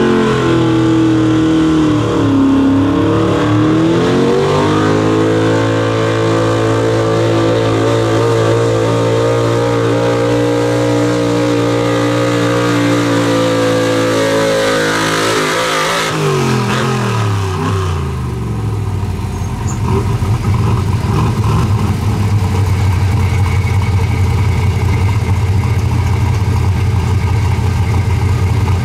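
Pulling truck's gas engine held at high revs under load during a pull, dipping briefly about two seconds in and then holding steady. About sixteen seconds in the revs fall away as the throttle comes off, and the engine settles into a loud, rough idle.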